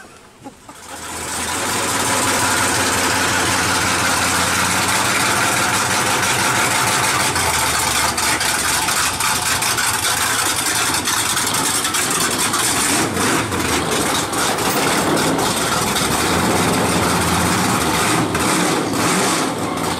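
Dirt-track street stock race car's engine idling loudly and steadily as the car is driven down off its trailer.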